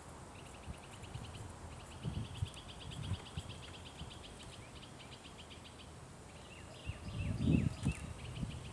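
Wild birds in the woods singing fast, even trills repeated in long runs, with a few short falling chirps near the end. Scattered low thumps of handling or movement come through, the loudest about seven and a half seconds in.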